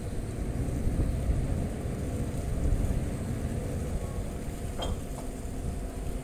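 Low, steady rumble of a ro-ro ferry's engines running at the berth, with a brief high chirp about five seconds in.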